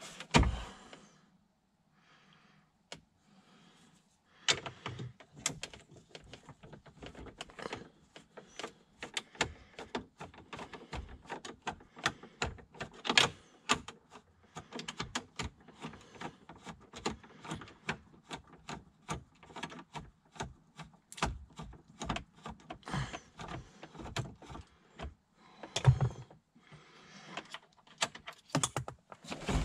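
Hand ratchet with a socket extension clicking rapidly in quick runs as bolts are backed out of a car's lower dash panel. A single thump comes right at the start, then a few seconds of quiet before the clicking begins.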